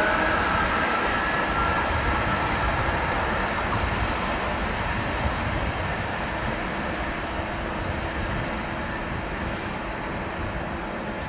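Class 460 electric multiple unit pulling away. Its electric traction whine holds a high steady pitch and fades out in the first few seconds, while the rumble of the train slowly dies away as it recedes.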